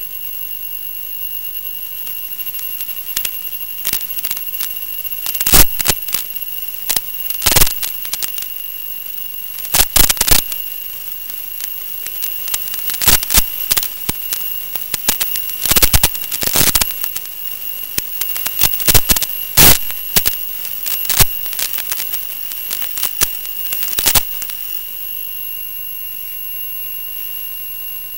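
Steady high-pitched electronic whine from the FPV video link's audio channel, broken by irregular loud crackles and pops between about three and twenty-four seconds in.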